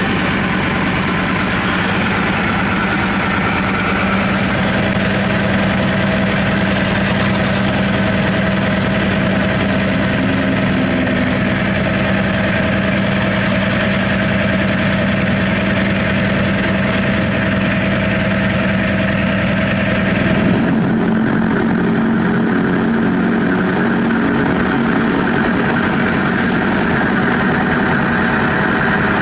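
Heavy diesel engine idling steadily, with a sudden change in its sound about twenty seconds in.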